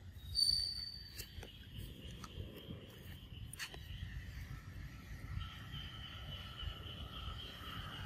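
Insects buzzing steadily in the forest background, with a second steady insect tone joining about halfway through. A brief high-pitched call rings out about half a second in, the loudest sound, and a few faint clicks follow.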